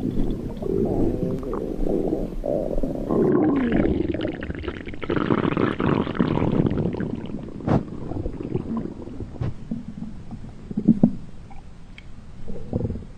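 Stomach rumbling sound effect: irregular gurgling rumbles that keep changing in pitch and texture. About three seconds in it switches to a different recording with brighter gurgles, and there are a few short sharp clicks later on.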